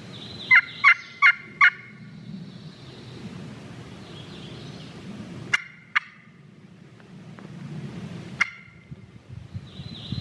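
Loud turkey calling meant to strike a gobbler: four quick, sharp notes in the first two seconds, then single sharp notes around the middle and another near the end.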